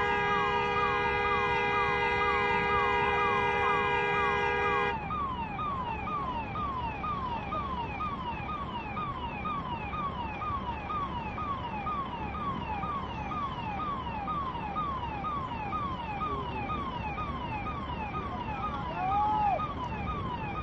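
Electronic siren wailing in quick falling sweeps, about two a second, with a steady multi-tone horn blaring over it for the first five seconds before it cuts off.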